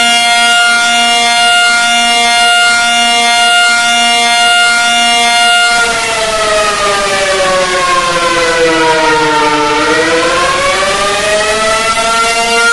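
Emergency alert siren holding a steady tone with strong overtones. About halfway through it glides down in pitch for a few seconds, then winds back up to the steady tone near the end.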